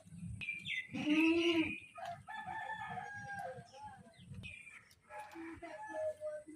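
A rooster crows once about a second in, a single arching call, followed by shorter chicken calls.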